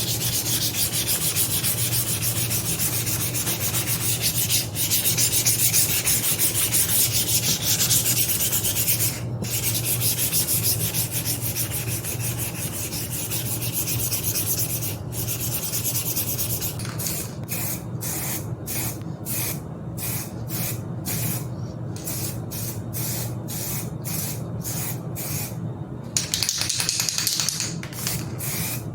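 Hand sanding: sandpaper rubbed back and forth on a bicycle part to key it before respraying. It is a continuous scrubbing at first, then turns into distinct strokes of about two a second, over a steady low hum.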